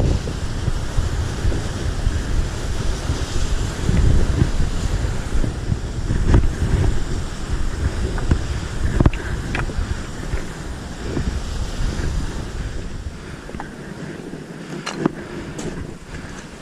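Strong wind gusting across the microphone as a heavy rumble, with a few sharp knocks; the wind eases near the end.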